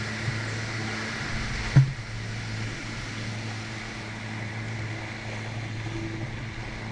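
Personal watercraft (jet ski) engine running steadily at low speed, its pitch holding level. A single sharp thump comes about two seconds in.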